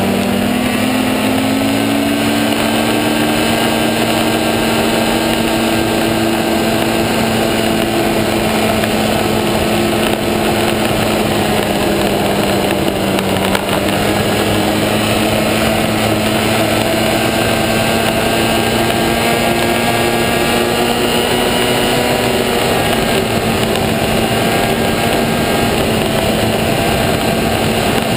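Snowmobile engine under way at trail speed, heard from on the machine. It rises in pitch as it accelerates in the first couple of seconds, then holds a steady cruise over a constant rush of noise.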